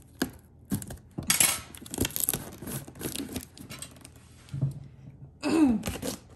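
A taped cardboard shipping box being worked open by hand with a hooked tool: irregular scraping, picking and clicking at the tape and cardboard seam, with a short tearing rasp about a second in. A brief voice sound with falling pitch comes near the end.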